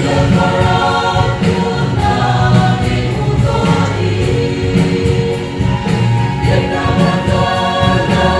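Mixed choir of women and men singing a gospel hymn together, with steady, sustained phrases.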